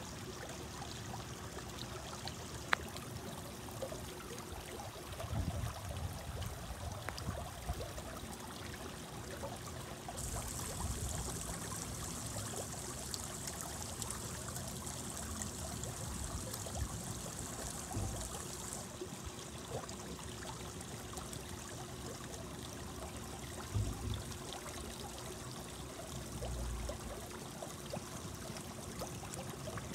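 Garden pond water trickling and bubbling steadily, fed by a small waterfall over stones and a bubbling inlet. In the middle the splashing grows brighter and hissier for several seconds, then settles back. A few low bumps come through now and then.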